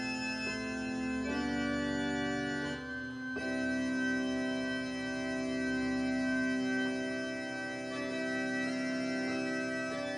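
Electronic keyboard on an organ voice playing slow, held chords in C major, each chord sounding steadily for a few seconds before changing.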